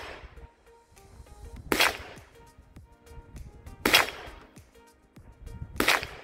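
Ruger PC Carbine 9mm firing three single shots, about two seconds apart, each with a short echo trailing off.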